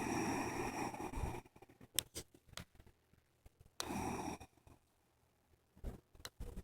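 A sleeping person's noisy breathing. One long breath sound at the start and a shorter one about four seconds in, with a few sharp clicks between them.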